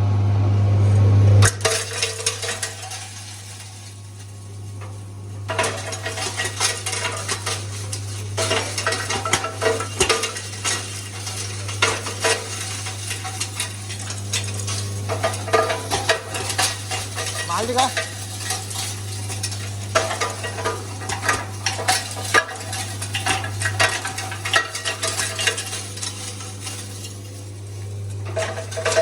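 Rock salt grinder machine running with a steady motor hum, its mill rattling and crackling as lumps of rock salt are crushed into granules. The crackling thins out for a few seconds near the start, then carries on densely.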